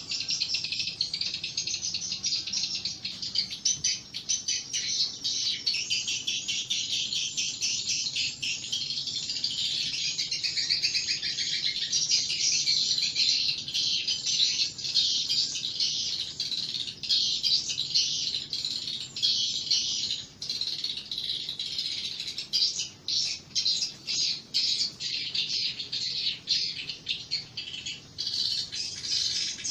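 Swiftlets twittering: many rapid, overlapping high chirps in a continuous chatter, typical of the calls heard in a swiftlet house.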